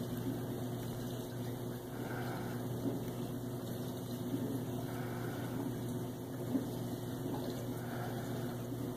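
Steady low machine hum, with a soft swell about every two and a half to three seconds.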